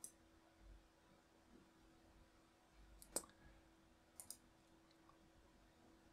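Faint computer mouse clicks over a low steady hum: one at the start, a sharper one about three seconds in, and a quick double click about a second later.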